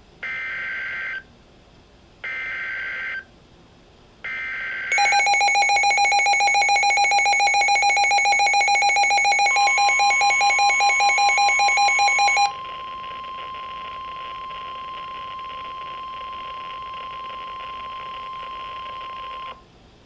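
NOAA Weather Radio alert sequence from a Midland WR-100 weather radio. First come three screechy SAME digital data bursts of about a second each. Then the radio's own rapidly pulsing alert beep sounds from about five seconds in, and the steady 1050 Hz warning alarm tone starts under it near ten seconds. The beeping stops at about twelve seconds, and the steady alarm tone holds alone until shortly before the end, announcing a new severe weather warning.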